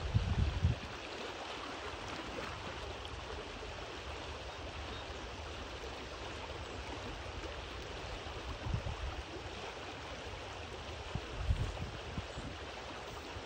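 Steady rush of a shallow stream's flowing water, with a few brief low bumps of wind on the microphone, the strongest at the very start and another past two-thirds of the way through.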